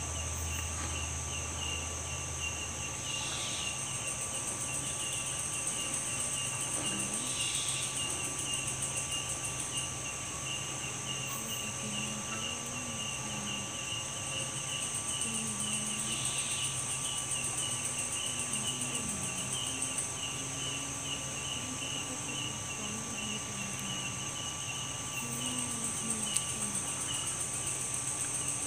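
Night insect chorus of crickets and other insects calling steadily: a high continuous buzz with a rapidly pulsing trill beneath it.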